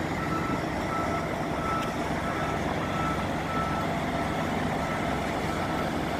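A truck's backup alarm beeping steadily, about one and a half beeps a second, over the low steady hum of idling diesel truck engines.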